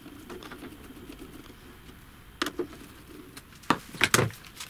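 Screws being undone from the bottom cover of an Icom IC-7610 transceiver with a screwdriver. There is quiet low scraping for the first couple of seconds, then a handful of sharp clicks and knocks from tool handling in the last two seconds.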